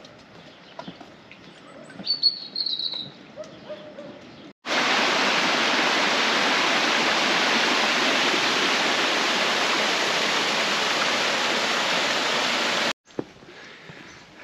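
Quiet outdoor background with a brief bird chirp about two seconds in; then, starting abruptly, the loud steady rush of a waterfall for about eight seconds, cut off just as abruptly.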